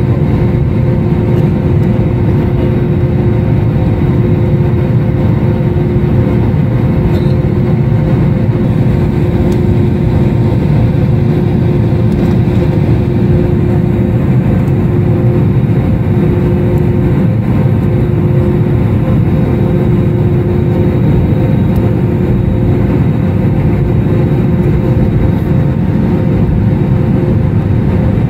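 Steady cabin noise inside an Airbus A320neo moving on the ground: a dense low rumble with a steady engine and air-system hum at idle, holding level with no rise in power.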